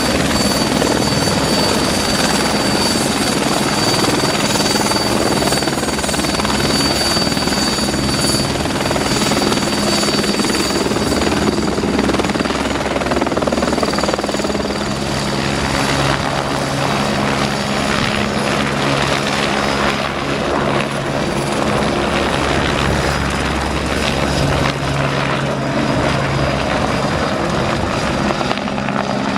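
Twin-engine Eurocopter AS355 helicopter running steadily at close range: a dense rotor and turbine noise with a high steady whine over a low rotor drone.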